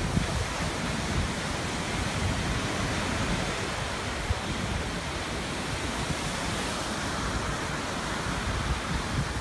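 Small waves breaking and washing up on a beach: a steady rushing hiss of surf.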